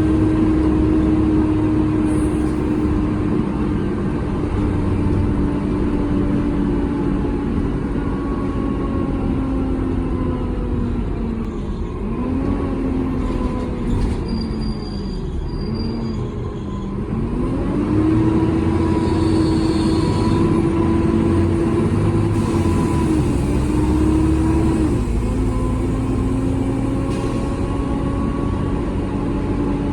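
Volvo B7TL double-decker bus under way, heard from inside: the engine and Voith automatic gearbox hold a steady drone with a whine. About a third of the way in the pitch sinks and wavers as the bus slows, then it climbs back as the bus pulls away, stepping up twice near the end with gear changes.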